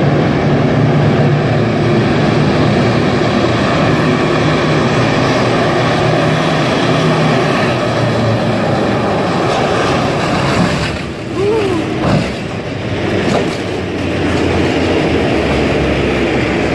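Tank driving past on a paved road: the steady drone of its engine over the clatter of its steel tracks. The sound dips briefly and becomes more uneven about two-thirds of the way through.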